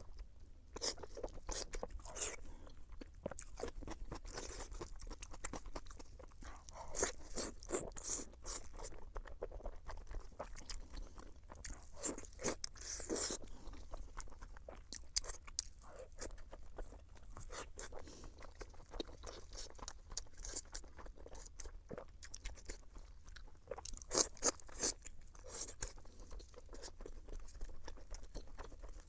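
Mukbang eating sounds: close-up chewing and crunching of pork in chili sauce, with many irregular crunches and clicks and a low steady hum underneath.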